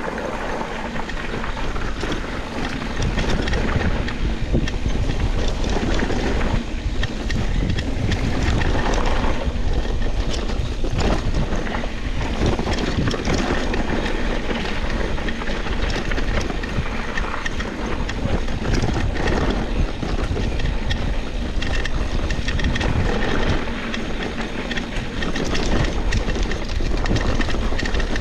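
Wind buffeting the microphone over the rumble and rattle of a mountain bike's tyres rolling fast down a dusty, choppy dirt trail.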